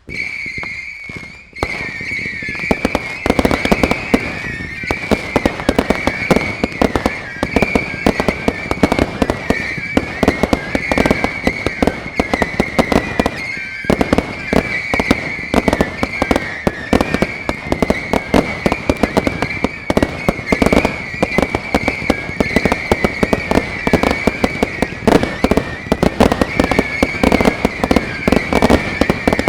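Fireworks display going off in a dense, continuous barrage of rapid bangs and crackling pops, with a steady wavering high whistle running over it. It starts suddenly and eases briefly just after the start before building back up.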